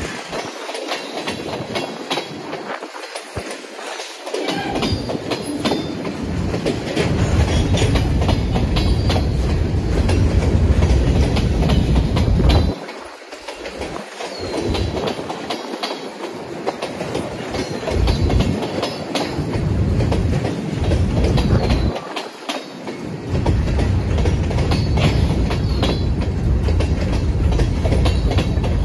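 Iowa Northern freight train rolling through a grade crossing, its cars' wheels clacking steadily over the rail joints and crossing. Heavy wind buffets the microphone in gusts.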